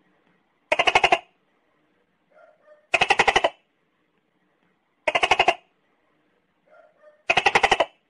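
Tokay gecko calling: four short rattling bursts about two seconds apart, each a rapid run of clicks, with a few faint short sounds between them.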